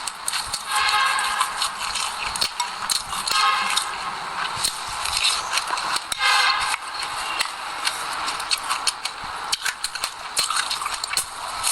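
Close-miked chewing of seeds, a dense irregular crackle of crisp crunches with a few louder bursts of chewing.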